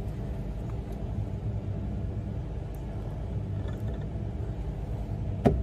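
A steady low rumble of background hum, with one sharp metal knock near the end as the hand injector is set against the aluminium bait mold.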